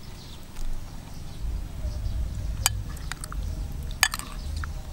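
Metal spoon clinking against a ceramic bowl of chicken curry as it scoops through the thick sauce: two sharp clinks, one about halfway through and another just over a second later, with a few fainter taps. A low rumble runs underneath.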